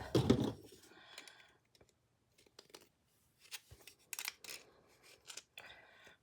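Scattered small clicks, taps and brief rubbing of easel parts and hardware being handled and fitted together, the loudest at the very start, then sparse clicks with a short cluster about four seconds in.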